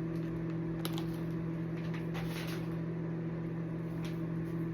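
Microwave oven running with a steady low hum, heating food on high. A few faint light clicks sound over it.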